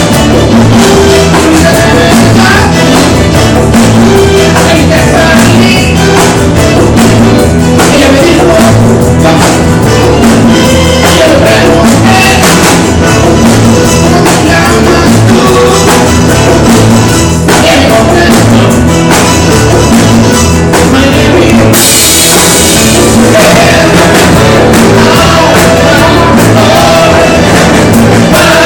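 Rock medley played loud, with drum kit and singing; a bright cymbal wash comes in about two-thirds of the way through.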